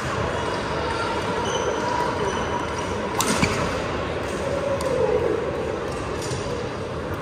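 Badminton hall during play: steady background chatter from the crowd, a sharp racket hit on the shuttlecock about three seconds in, a few fainter hits, and sneakers squeaking on the hardwood court floor.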